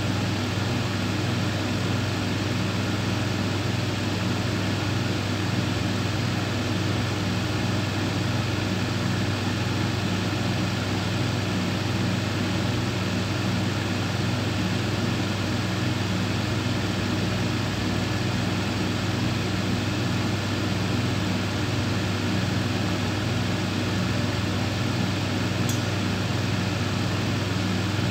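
Steady, unchanging low hum of electric workshop machinery running, with no cutting or load changes.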